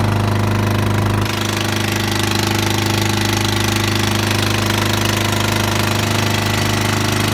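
Outrigger fishing boat's engine running steadily with a fast, even pulse and a low hum. It drops slightly in level about a second in.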